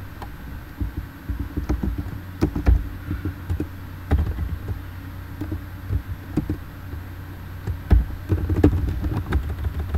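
Computer keyboard typing: irregular key clicks over a low hum.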